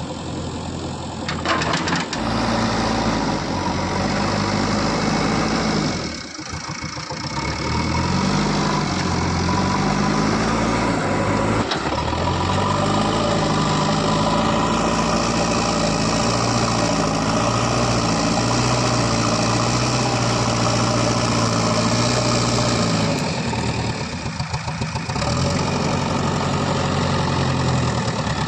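Diesel engine of an earthmoving machine running under working load, its pitch repeatedly rising and falling as it revs up and settles back. The engine drops off briefly twice, about six seconds in and again near the end.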